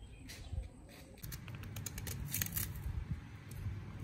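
Crisp rustling with a run of sharp clicks, like things being handled, joined by a low rumble from about a second in.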